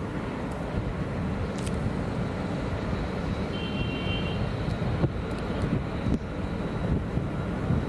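Steady low outdoor rumble, with a few faint clicks and a brief high tone about halfway through.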